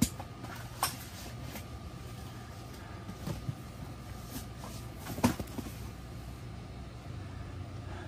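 Scattered knocks and clicks from a rolled inflatable sleeping pad being unrolled on a tent floor and its straps handled, the sharpest knock about five seconds in, over a steady low hum.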